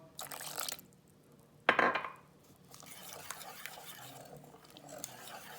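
Chickpea-flour (besan) batter being stirred in a bowl: two short, louder scraping strokes in the first two seconds, then steady soft stirring with faint clicks of the utensil against the bowl.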